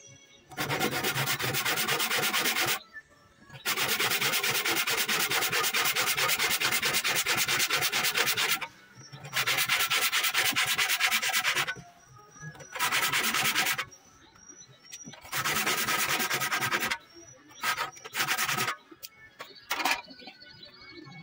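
Hand saw cutting through an ulin (Borneo ironwood) beam: steady sawing in several long bouts separated by short pauses, with a few brief scrapes near the end.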